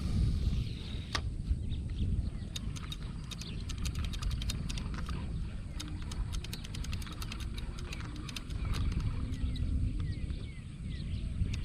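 Splashing and sloshing in shallow muddy water, with a run of quick sharp clicks and knocks.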